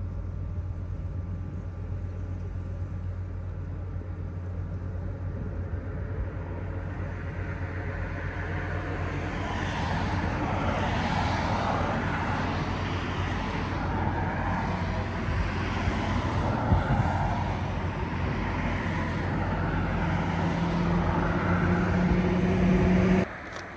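Outdoor traffic noise: a steady low hum, with a passing vehicle's engine noise swelling from about a third of the way in and growing louder, then cutting off suddenly near the end.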